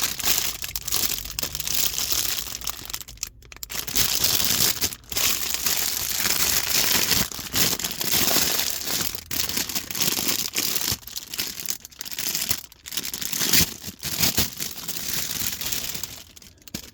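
Plastic packaging crinkling and rustling close up, handled continuously with a few brief pauses, as the new gear stick gaiter is unwrapped.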